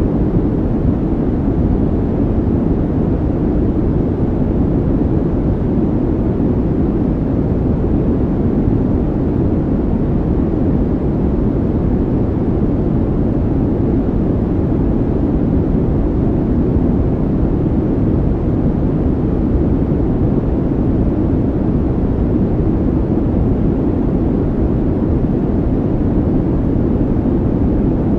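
Steady, even low rumbling noise with no changes or separate sounds: a calming background noise track, like brown noise.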